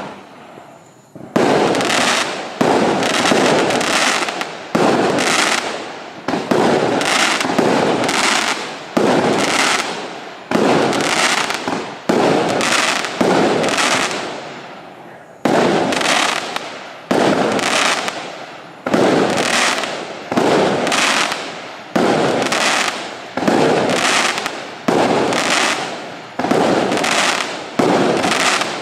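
Firework cake battery ("Admiralty" combination cake) firing shot after shot, about one a second. Each is a sharp bang that tails off over about a second, with a short break near the middle.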